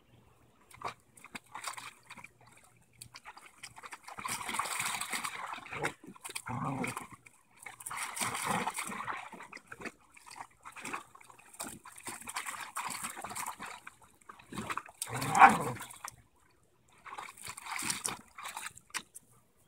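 Dogs splashing and scrambling in the water of a shallow plastic kiddie pool, in irregular bursts, with short dog vocalizations; the loudest moment is a sharp sound about fifteen seconds in.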